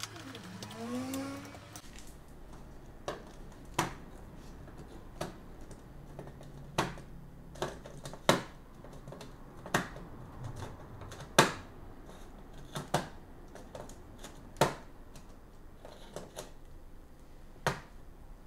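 Plastic control-panel components (relay bases and terminals) snapping onto a metal DIN rail: about fifteen sharp clicks at irregular intervals, some louder than others. A short rising whir comes in the first second or so.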